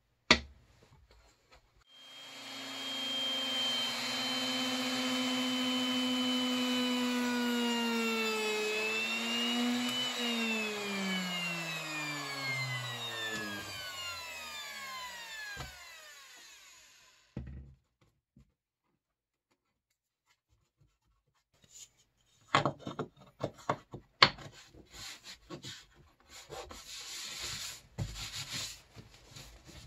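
Plunge router running at a steady high pitch, dipping briefly as the bit cuts a shallow finger recess, then switched off and winding down, its pitch falling over about six seconds until it stops. Later, light scraping and tapping of a wooden insert being pressed and rubbed into its recess.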